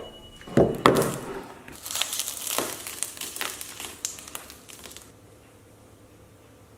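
Irregular crinkling and clicking handling noises, dying away after about five seconds.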